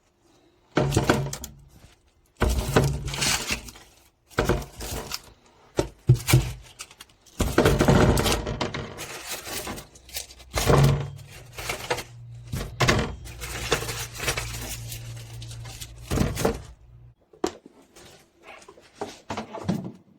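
Household items clattering and knocking as they are handled and set down, a long run of irregular knocks and short scrapes.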